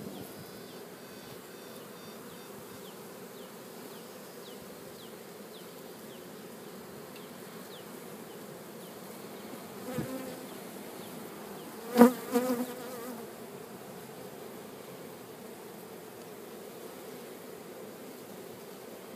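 Honeybees buzzing steadily around an open hive of a strong colony. A soft knock comes about ten seconds in and a louder, sharp knock about two seconds later.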